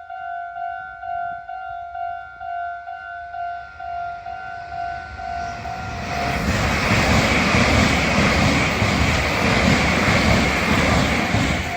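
Japanese railway level-crossing bell ringing steadily, about two dings a second. About six seconds in, a Meitetsu electric train passes, and its loud rumble and wheel noise drown out the bell until the very end.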